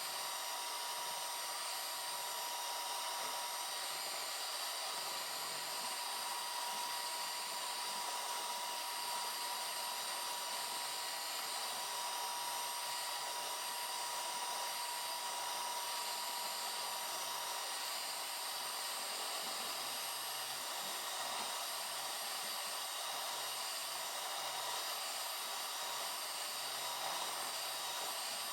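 Electric mixer motor running steadily at speed, a constant whir with a faint high whine, typical of beating eggs and sugar into a foam for sponge batter.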